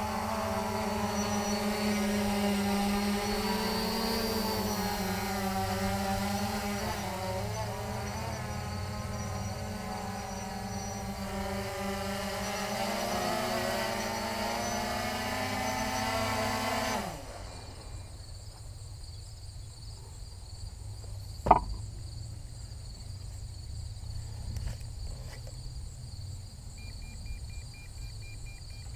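Holy Stone HS700D quadcopter's brushless motors and propellers humming as it hovers, the pitch wavering slightly. About 17 seconds in the motors spin down quickly and stop, leaving steady insect chirping and, a few seconds later, a single sharp click.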